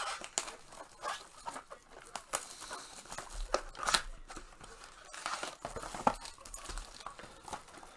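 Trading-card packaging being torn open and handled: irregular crinkling, tearing and rustling with small clicks and taps.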